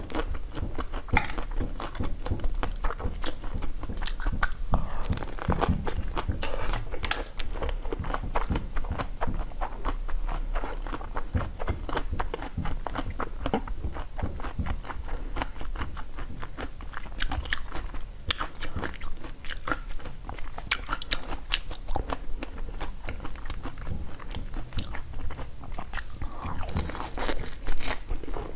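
Close-miked biting and chewing of a frozen ice-cream bar with a hard blue coating: a dense run of crisp cracks and crunches as the shell breaks, with a louder cluster of crunching near the end.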